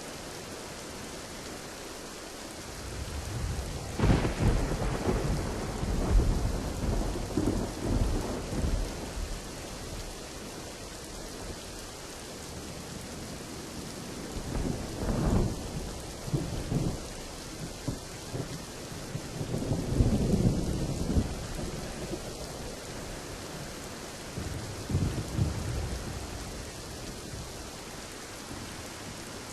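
Steady rain with rolling thunder: a long low rumble builds about three seconds in and rolls on for several seconds, followed by shorter rumbles about halfway through, around two-thirds of the way, and once more near the end.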